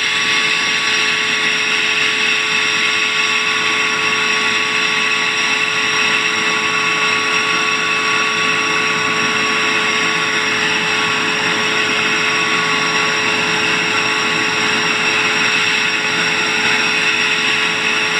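Vacuum cleaner running steadily with a whine, its round nozzle attachment being worked over a dirty furnace air filter to suck the dust out of it.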